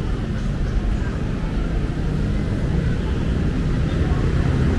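Busy city street traffic: vehicle engines running with a steady low rumble.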